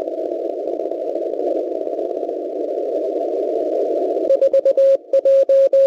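Shortwave radio reception of the Baron-78 Russian military transmission, presumed hub of the Monolith numbers-station network. It is a narrow band of radio noise, and about four seconds in it breaks into a quick run of short beeps of one steady tone, then a few longer beeps.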